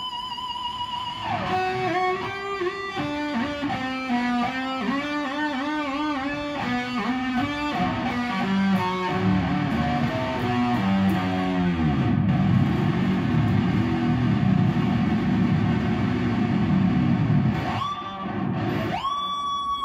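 Electric guitar, an Ibanez-style instrument that has been rewired, playing a fast lead line of quick notes with wide vibrato. About twelve seconds in the pitch dives into low, wavering notes, and near the end a single note swoops upward.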